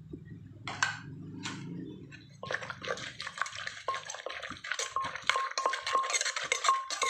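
Wooden pestle and spoon working wet salad ingredients in a clay mortar. Two single knocks come first, then from about two and a half seconds in there is a quick, continuous run of wet squelches and clicks. A low hum sits under the first half.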